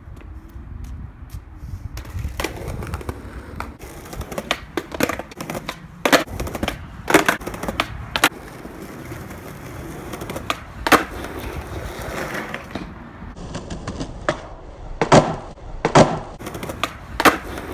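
Skateboard on concrete: wheels rolling with a low rumble, and repeated sharp cracks and slaps as the board is popped and lands back on the pavement, about nine in all.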